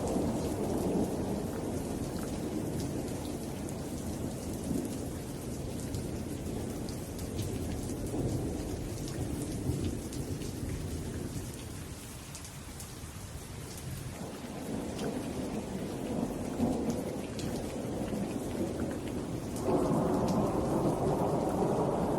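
Steady rain falling, with the patter of drops over a low rolling rumble of thunder that swells and fades and grows louder near the end.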